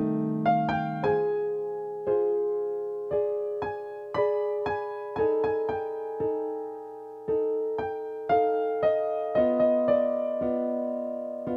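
Slow keyboard music in an electric-piano or piano tone: single notes struck about once or twice a second, each left to ring and fade, building into held chords.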